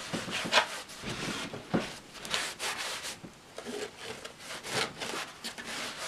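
Cloth rubbing over the black textured covering inside a Marshall combo amp cabinet, in repeated wiping strokes at about two a second.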